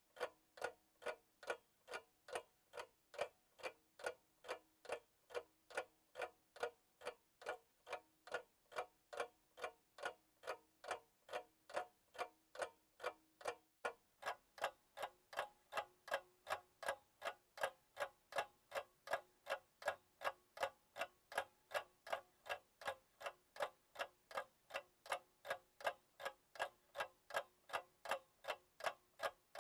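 Clock ticking steadily, about two ticks a second, the ticks coming a little quicker from about fourteen seconds in.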